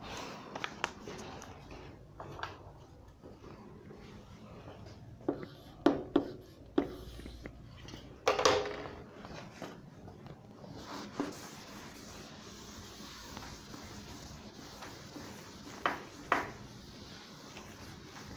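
Scattered light knocks and handling noises, as of objects being picked up and set down. There is a cluster of sharp taps about five to seven seconds in, a longer knock around eight and a half seconds, and two more close together near the end, over a faint steady background.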